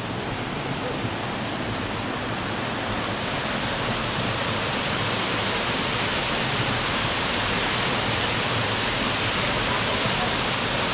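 Steady rush of a small waterfall pouring into a shallow rock pool, getting a little louder over the first few seconds.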